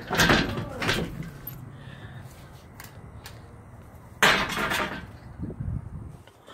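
Doors being handled: knocks and a clatter as the front door is opened, then a loud metallic rattle-bang about four seconds in as the wrought-iron security door is pushed open or swings shut.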